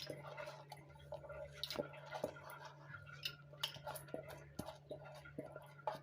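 Washed, wet rice being tipped into a large bowl: irregular soft clicks and patters as the grains land.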